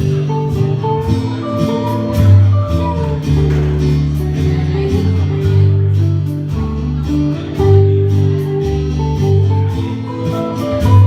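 Instrumental break in a folk song: acoustic guitar strumming over a bass line that moves note by note, with a melody line above.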